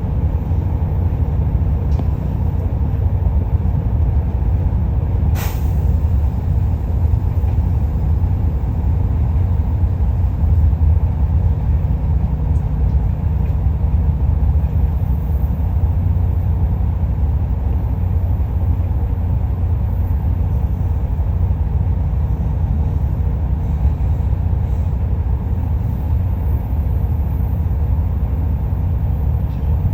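Kobelco excavator's diesel engine running steadily with a low rumble, and a single sharp click about five seconds in.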